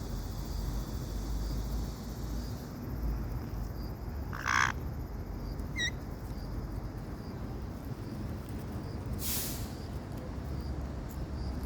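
Caique parrot at the camera: low rubbing and bumping noise throughout. A short harsh call comes about four and a half seconds in, a brief chirp a second later, and a short hissy burst about nine seconds in.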